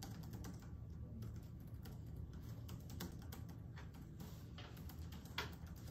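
Several people typing on laptop keyboards at once: a quick, irregular patter of soft key clicks over a low steady hum.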